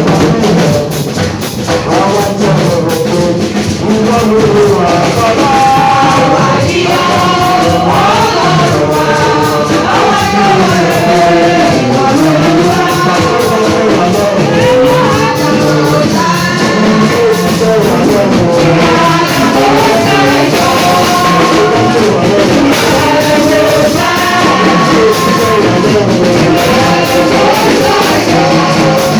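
Choir singing a worship song with instrumental backing, loud and unbroken.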